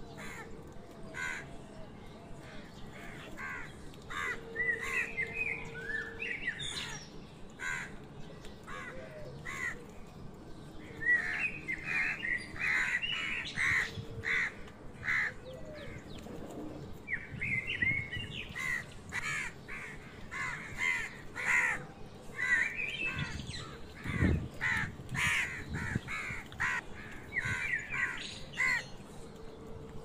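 Crows cawing amid the chirping of small birds, over many sharp taps as a house crow's beak pecks grain off a concrete floor.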